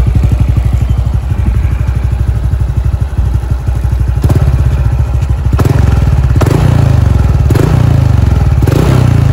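Honda Wave 125i single-cylinder four-stroke engine idling through an opened-and-repacked ('pha mok') race muffler with a very soft note. About four seconds in it is given a series of short throttle blips, about one a second.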